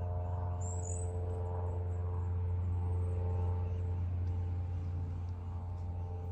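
A steady low mechanical hum with several steady tones above it, unchanging throughout, with a few short high chirps about a second in.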